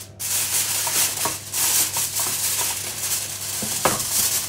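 Aluminium foil crinkling and rustling as hands crimp it over a roasting tin, a continuous crackle with irregular crunches and a louder crunch near the end.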